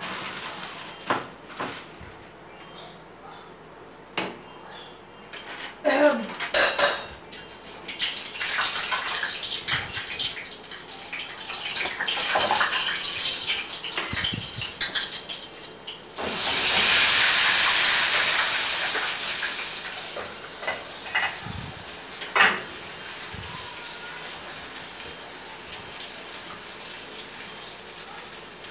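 Kitchen clatter at a sink: dishes and utensils clinking and knocking, then a few seconds of running water past the middle and a single sharp clack a little later. Near the end, a faint steady sizzle of eggs scrambling in a frying pan on a gas stove.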